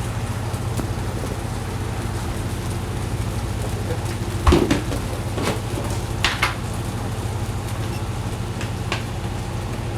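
Kitchen cooking sounds over a steady low hum: a handful of short metal clinks and knocks, like a utensil against a cooking pan, bunched around the middle with one more near the end.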